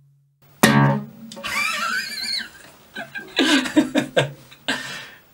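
Nylon-string classical guitar: a loud strummed chord about half a second in, then scattered plucked notes and strums, cutting off abruptly near the end.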